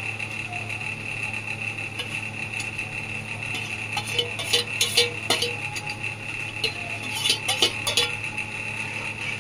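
Steel spoon clinking and scraping against a steel kadhai as rice cooking in milk is stirred. The clinks come in a cluster from about four to eight seconds in, over a steady background hum.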